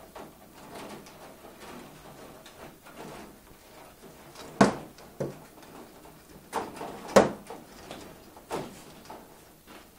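Rustling and handling noise of things being moved about on a workbench, with about five sharp knocks or clacks; the loudest come about four and a half and seven seconds in.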